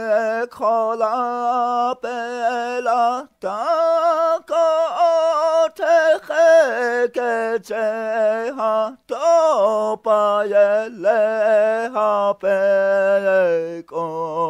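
A single male voice singing a Lakota chant unaccompanied, in long held notes with a wavering pitch, broken by short pauses.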